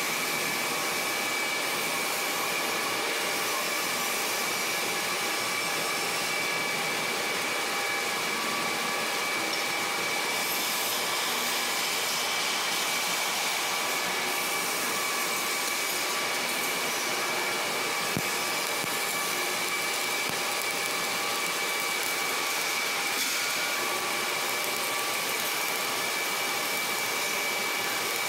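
Steady whirring machinery noise with a constant high whine, typical of a ship's workshop ventilation or running plant.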